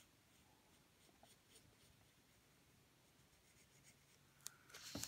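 Faint scratching of a yellow pencil's graphite on paper in short strokes, with a few louder strokes near the end.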